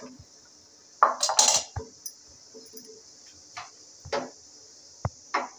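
Metal kitchen utensils clattering against a metal cooking pot: a loud clatter about a second in, then a few separate lighter knocks.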